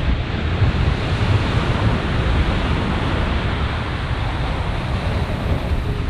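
Ocean surf breaking and washing up the beach in a steady rush, with wind buffeting the microphone in a low, fluttering rumble.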